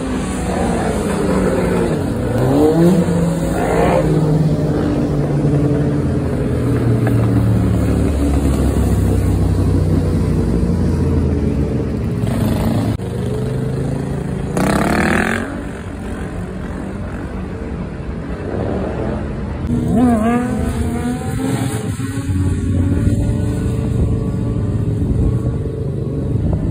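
Dirt bike and motorcycle engines revving as several bikes ride past in wheelies, their engine notes rising and falling, with louder passes about three seconds in, around the middle, and again later.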